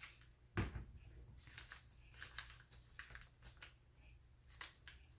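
Paper being handled and pressed down onto a journal page: light rustles and small taps, with a soft thump about half a second in and another tap near the end.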